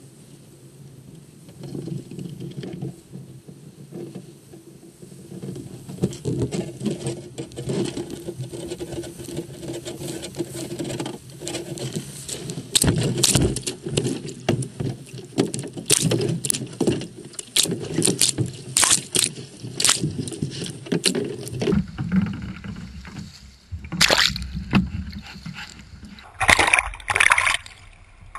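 A sea kayak hull scraping and knocking over a pebble shore as the boat is launched, with many sharp knocks in the middle stretch. It then settles into water sloshing against the hull, with a few paddle splashes near the end.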